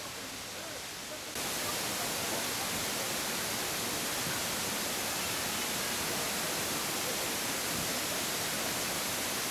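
Steady outdoor rushing hiss with no distinct events. It jumps louder about a second and a half in, then holds even.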